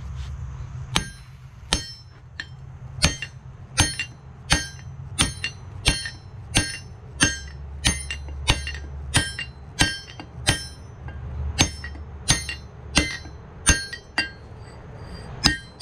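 Hand hammer striking steel on an anvil, about one and a half to two blows a second with a ringing clang after each, as the drilled hole in a ring pommel is drifted open with a punch. A steady low hum runs underneath.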